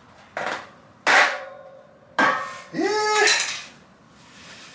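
A tyre lever clacking against a carbon road-bike rim as the last stretch of a tubeless tyre's bead is levered over: three sharp clacks, the loudest about a second in with a short ring, followed by a grunt of effort.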